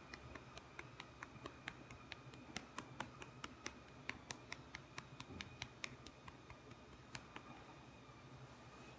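A hand patting a long-haired cat's back: faint, irregular light taps, roughly two to four a second, that stop a little before the end.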